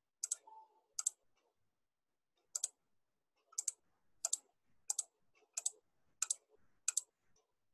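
Computer mouse button clicked about nine times at irregular intervals of roughly half a second to a second and a half, each click a quick double tick of press and release, stepping a code debugger forward line by line.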